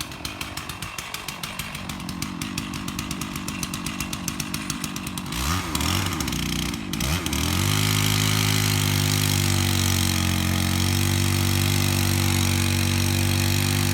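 Chainsaw engine idling with a fast, even putter, revved up and down twice about halfway through, then held at a steady full throttle, as when cutting into a tree.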